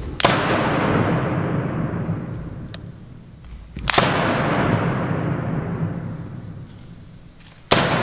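A large drum struck three times, about every four seconds, each beat ringing out slowly in a large hall.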